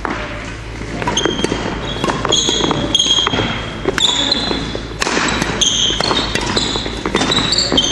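Badminton doubles rally: trainers squeaking repeatedly and thudding on a wooden court floor, many short high squeaks coming thick and fast from about a second in, with sharp clicks of rackets striking the shuttlecock.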